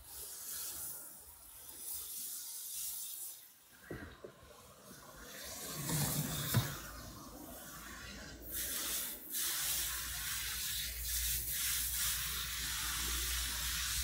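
Garden hose spray nozzle jetting water onto the racks and door of a dishwasher to rinse out soap foam: a rushing hiss that eases off about four seconds in and again around eight seconds, then picks up again. One sharp knock partway through.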